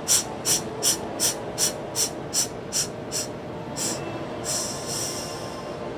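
Steam locomotive chuffing in a steady rhythm of about two and a half puffs a second, slowing and stopping a little after three seconds in, followed by one longer hiss of steam about four and a half seconds in.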